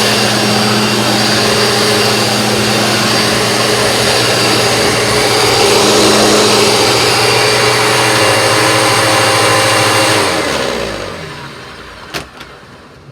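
Vacuum cleaner motor running steadily with a loud whooshing hiss, then switched off about ten seconds in and winding down with falling pitch. A sharp click comes near the end as it spins down.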